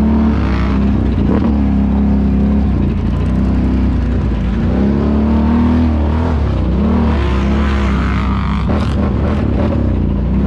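ATV engine running under throttle, its pitch rising and falling as it is revved.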